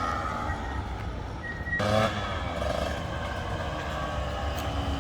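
Husqvarna TE150i two-stroke motocross engine running, with a sudden short burst of throttle about two seconds in.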